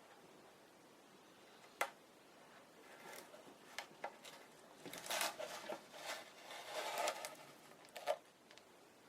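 Small tools and plastic model parts being handled at a workbench: a sharp click a little under 2 s in, then a run of light clicks, rustling and scraping, with a last sharp click near the end.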